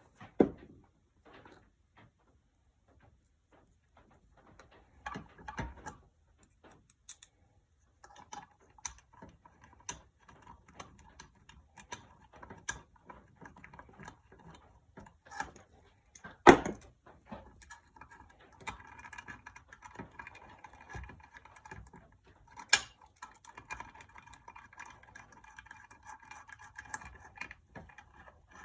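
Hand tools working small bolts into a motorcycle engine case: a run of light metallic ticks and clicks, with a sharper metal clank about halfway through and another a few seconds later.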